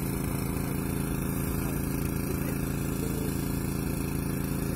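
An engine running steadily at a constant speed, a low, even hum with no changes.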